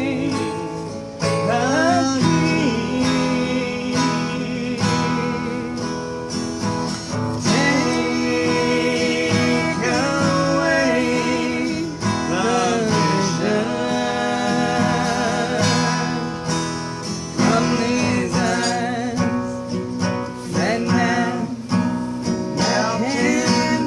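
Acoustic guitar strummed as accompaniment to a singing voice with a wavering vibrato, a slow gospel song performed live.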